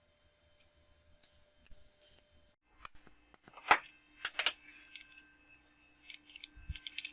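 Small metal parts being handled: light clinks and clicks with two sharper metal knocks about halfway through, then a quick run of small taps near the end.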